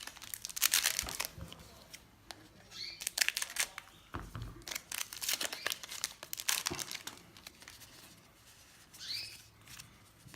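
Foil booster pack wrappers for Magic: The Gathering being torn open and crinkled, in several short crackly bursts.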